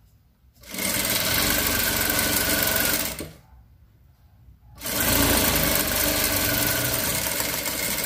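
Domestic sewing machine running a straight seam in two steady runs, stopping for about a second and a half in between.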